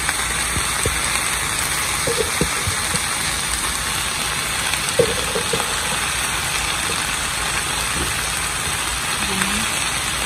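Steady hiss of fish and vegetables sizzling in a hot pot, with a few faint clicks.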